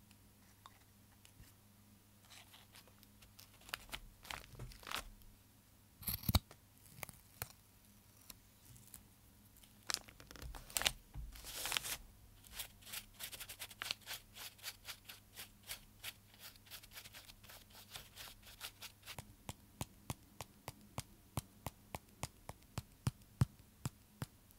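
Close-up paper-crafting sounds: scattered paper rustles and sharp clicks, then a longer tearing or crinkling sound about ten to twelve seconds in. After that comes a steady run of quick light clicks, about three to four a second.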